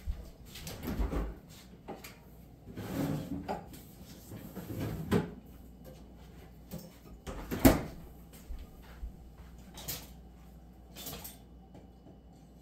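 A refrigerator door and kitchen drawers opening and closing, heard as scattered clunks and knocks, the sharpest a little past halfway.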